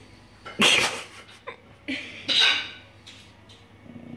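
Jack Russell terrier snarling in short, harsh bursts with its teeth bared, loudest about half a second in and again about two and a half seconds in: a warning to keep off its treat.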